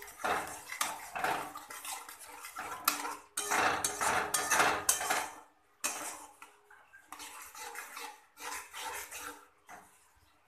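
A metal spatula scraping and clattering against a metal kadai as a thick tomato, spice and curd masala is stirred and fried down, in irregular strokes. It stops near the end.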